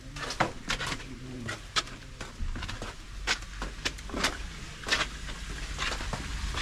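Footsteps going down wet stone steps: irregular scuffs and taps, one or two a second, over a low rumble.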